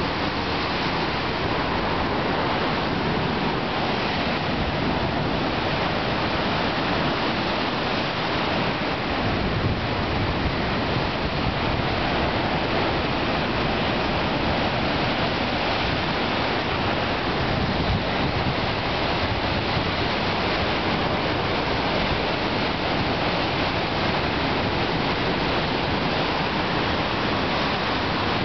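Rough sea: heavy surf and white water churning and breaking against rocks, a steady, dense rush of water with no pause.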